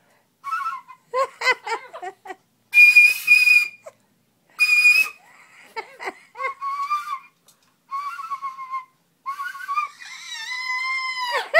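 Yellow plastic toy whistle blown by mouth: a few short notes, then two loud, shrill, breathy blasts, then lower wavering notes, the last of them dipping and rising in pitch near the end.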